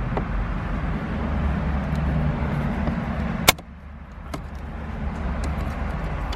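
Steady low rumble of a vehicle running nearby, with one sharp plastic click about halfway through as trim around the start button is worked loose, and a few faint ticks after it.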